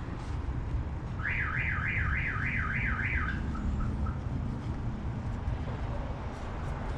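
Electronic warbling alarm tone, rising and falling about three times a second for some two seconds, then trailing off in a few short blips, over a steady low rumble.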